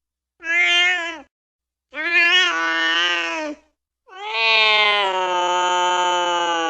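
Cat yowling in a fight: three drawn-out wails, a short one, then a longer one, then a long held one, with dead silence between them.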